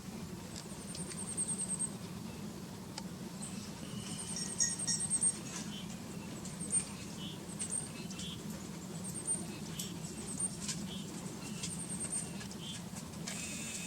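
Small birds calling: very high, thin rapid trills and short chirps, repeated every second or so over a steady low hum.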